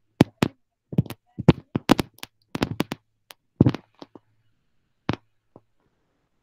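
A run of about a dozen irregular sharp clicks and taps that thin out and stop near the end, with dead silence between them.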